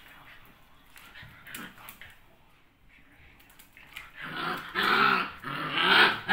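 A dog growling: faint small noises at first, then three long growls in a row, starting about four seconds in.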